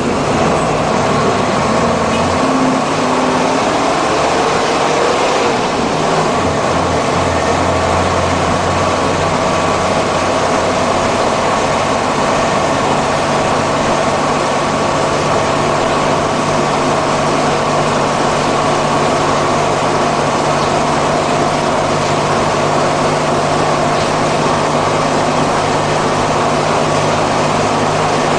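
Mercedes-Benz OF-1315 bus's OM-366 150 hp inline-six diesel engine running loudly and continuously. Its note shifts during the first few seconds, then holds steady.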